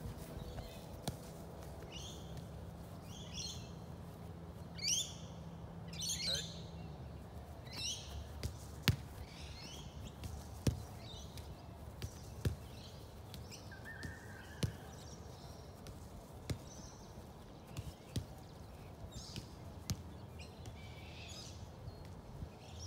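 Birds chirping and calling in short bursts throughout, with sharp taps of a football being kicked during dribbling every second or two through the middle.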